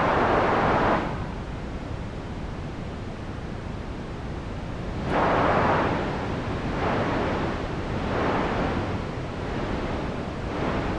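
Synthesised white noise from a Haken Continuum's EaganMatrix, run through a low-pass filter whose bandwidth is opened and closed by a breath controller, so the hiss swells and ebbs like wind or ocean surf. It is loud for the first second, dips, swells strongly about five seconds in, then rises and falls in several smaller swells.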